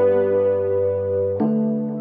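Background music of sustained keyboard chords, with a new chord struck about one and a half seconds in.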